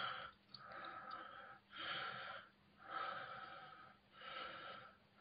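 A person breathing heavily and wheezily close to the microphone, about one breath a second.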